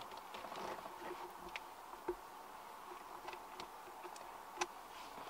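Quiet car-cabin background with a faint steady hum and a few short, faint clicks and ticks scattered through it, the clearest a little after two seconds and near the end.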